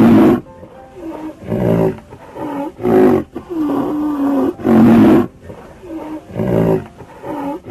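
Rhinoceros calls: a run of about ten deep, pitched grunting calls with short gaps, most under half a second, and one longer held call about four seconds in.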